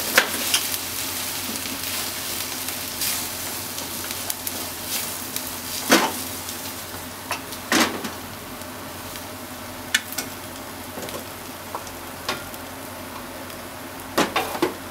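Meat and sliced onion sizzling as they are stir-fried in a frying pan, with wooden chopsticks knocking against the pan every second or two. The sizzle eases off a little toward the end.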